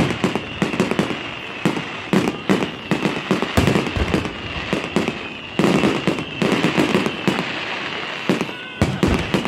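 Fireworks display: aerial shells bursting in a dense, irregular run of loud bangs, several a second, over continuous crackling from glitter effects.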